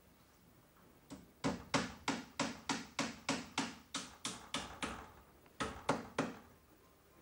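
Hammer striking overhead wooden ceiling battens, driving in nails: a light first tap, then a steady run of about a dozen blows at roughly three a second, a short pause, and three more blows.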